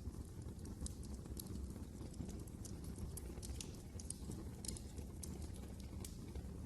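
Wood fire crackling: irregular sharp pops and snaps over a low, steady rumble of burning.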